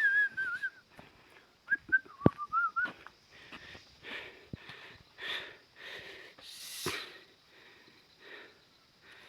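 A person whistling two short wavering phrases, followed by soft scuffing and rustling sounds with a few clicks.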